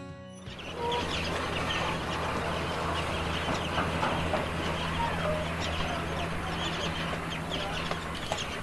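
Chickens clucking, with many short bird chirps, over a steady low hum.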